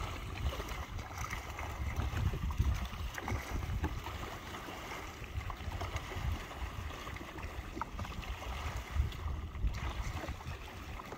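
Sea-Doo FishPro personal watercraft on open water: a steady rush of water and wind with an uneven low rumble.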